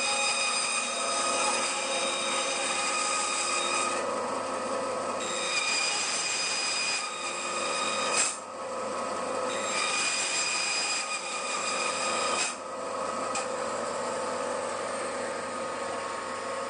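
Bandsaw running with a steady whine, its blade making a series of cuts into timber for the waste of a half lap joint. The high part of the whine drops away and comes back several times as the cuts go.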